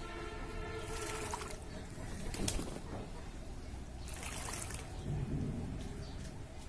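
A pigeon bathing in a shallow plastic basin, splashing water with its wings in two short bursts, about a second and about four seconds in. A pigeon coos at the start.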